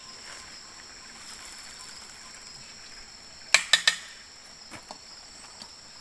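Insects droning steadily in the surrounding forest, a high, even buzz. About three and a half seconds in, three sharp clicks follow one another quickly.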